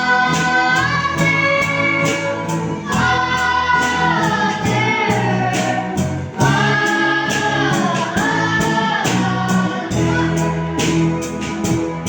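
A Christian worship song sung by a group of voices over a band with a steady beat and bass.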